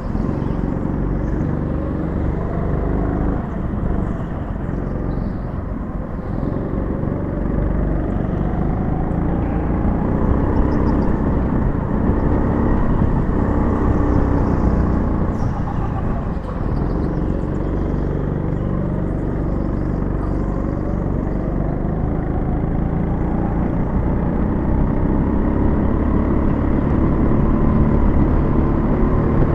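Go-kart engine heard onboard, running hard around a lap, its pitch rising and falling over and over as the driver accelerates and lifts for the corners.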